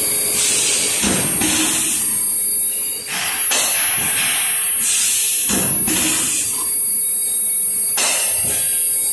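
SY-680B plastic cup thermoforming machine running its forming cycle: repeated hisses of compressed air about every second or so, with several heavy knocks from the press, over a thin steady high whine. Light plastic cups drop onto the stacking conveyor.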